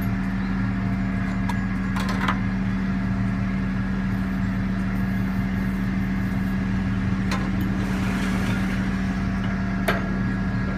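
Link-Belt 8065 crane's diesel engine idling with a steady drone, and a few sharp knocks from the boom-pin work, the loudest near the end.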